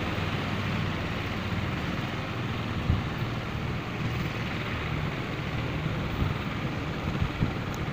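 Steady low engine drone with wind buffeting the microphone, giving a few brief low thumps.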